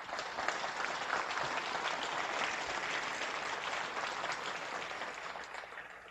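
Audience applauding, a dense steady patter of clapping that dies away near the end.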